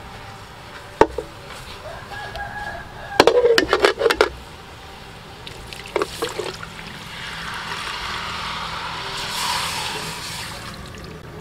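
Metal ladle clanking and scraping against a steel wok as pig ears are stirred, with a quick run of clanks about three seconds in. Then water is poured from a pot into the wok, a steady splashing pour lasting about four seconds.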